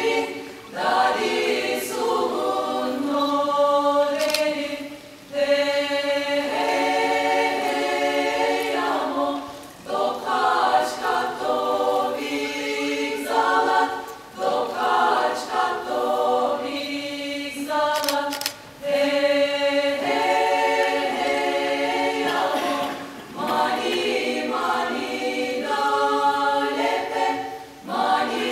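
Women's polyphonic choir singing a cappella, several voice parts moving together over a held low note, in phrases of four or five seconds with short breaths between them.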